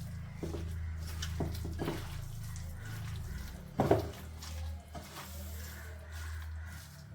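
Raw chicken being mixed by hand with spices, onion and coconut oil in a bowl: wet, irregular mixing noises and small clicks, with one louder knock about four seconds in, over a steady low hum.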